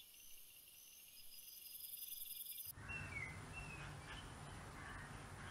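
Faint outdoor nature background. First a high, evenly pulsing chirr, then, after a sudden change about two and a half seconds in, a low rumbling hiss with a couple of brief chirps.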